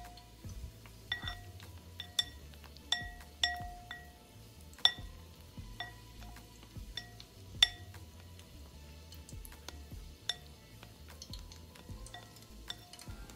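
Tongs tapping and clinking against a glass mixing bowl while turning seaweed rolls in thin batter, each clink ringing briefly. The sharpest clinks come about five and seven and a half seconds in.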